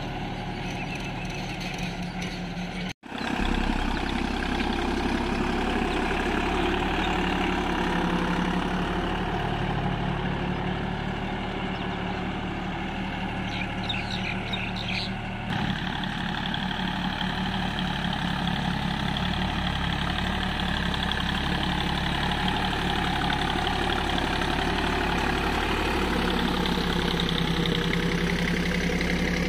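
Deutz-Fahr tractor's diesel engine running steadily as it pulls a laser land leveller through loose soil, the sound dropping out for a moment about three seconds in.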